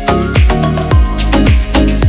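Background electronic dance music with a steady kick-drum beat about twice a second.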